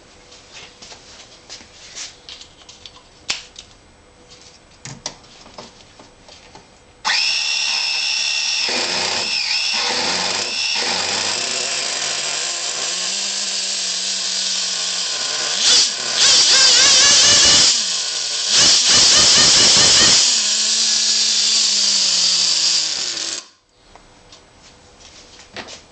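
Traxxas TRX 3.3 two-stroke nitro glow engine, run off the model: after a few seconds of light clicking and handling it catches about seven seconds in and runs with a high buzzing whine that rises and falls as it is revved, loudest about two-thirds through. It cuts off suddenly near the end.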